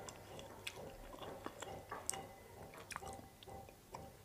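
A person chewing a mouthful of frozen homemade kulfi, close to a clip-on microphone, with small scattered mouth clicks.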